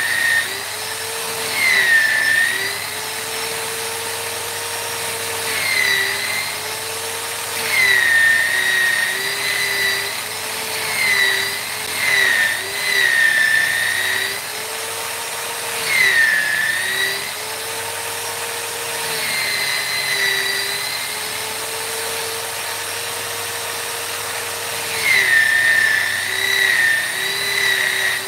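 Small high-speed electric power tool running continuously on wood. Its whine drops in pitch and gets louder every few seconds as it is pressed into the work, then recovers.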